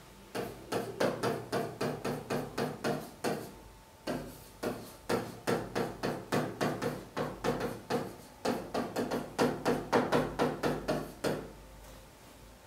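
A pen tapping and knocking against a screen while writing letters: a quick run of sharp taps, about three or four a second, with two short pauses.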